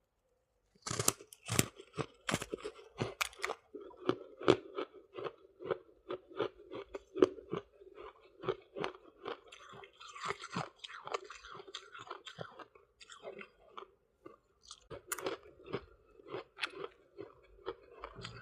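A person biting and chewing soft white frost ice scraped from a freezer: a quick, even run of crisp crunches, about three a second, starting about a second in.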